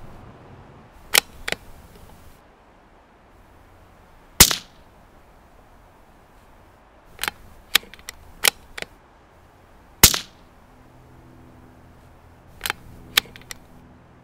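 Suppressed rimfire gunshots through a SilencerCo Sparrow 22 suppressor, the loudest two a few seconds in and about ten seconds in from a Savage 93R17 bolt-action rifle in .17 HMR, each a sharp crack with a short ringing tail. Between and around them come a pair of quieter shots about a second in and several smaller sharp cracks and clicks.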